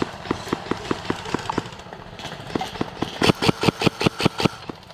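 Footfalls and kit jostling of a player running, a fast even train of knocks, about six a second. The knocks grow much louder and sharper for about a second and a half past the middle.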